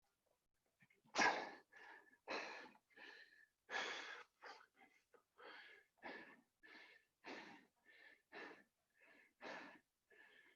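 A person panting hard from exertion during burpees, about two loud breaths a second, each with a wheezy edge.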